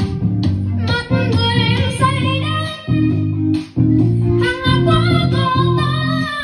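A boy singing a Vietnamese song through a handheld karaoke microphone over a guitar accompaniment, with a brief break in the music a little past the middle.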